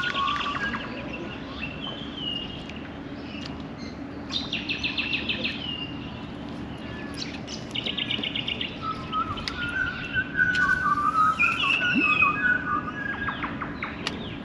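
Several birds calling: repeated chirps, fast rattling trills and warbling calls overlapping one another, over a steady low hum.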